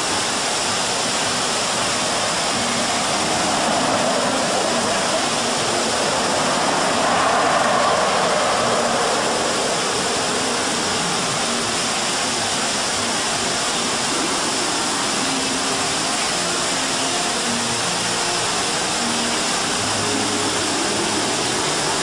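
Water jets of an ornamental fountain shooting up and splashing back down into the pool: a steady, even rushing hiss that swells a little about four to nine seconds in.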